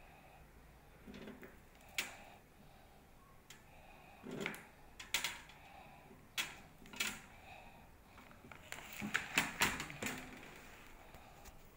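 A stack of thin copper plates clicking and clacking against each other as they are handled, in irregular sharp taps. They come singly at first and in a quick cluster about nine to ten seconds in.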